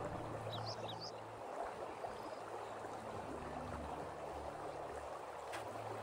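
Shallow rocky creek trickling and babbling steadily over stones and gravel.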